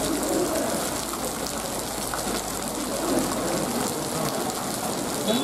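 Steady rain falling, a continuous even hiss, mixed with steam hissing from a slowly arriving Darjeeling Himalayan Railway B-class steam locomotive.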